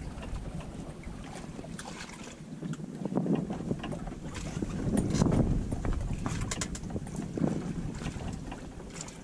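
Wind buffeting the microphone and water slapping against the hull of a drifting fishing boat, rising and falling in uneven surges, with a few light clicks about two-thirds of the way through.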